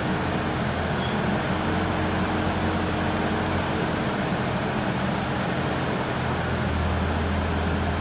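Bobcat telehandler's diesel engine running steadily, with a low hum that grows stronger about two-thirds of the way through as the boom holds a concrete skip.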